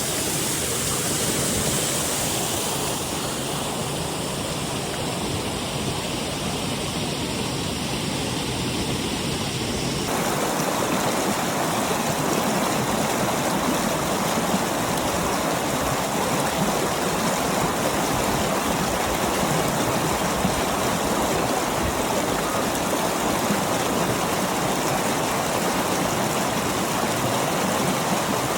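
Waterfall running: a steady rush of falling water, its sound becoming fuller about ten seconds in.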